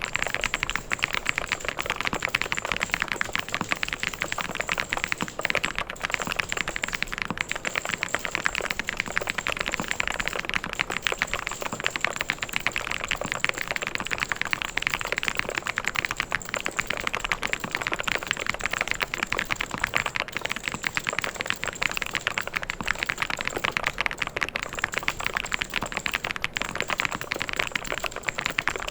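Fast, continuous typing on a mechanical keyboard: a dense, steady stream of key clicks and clacks.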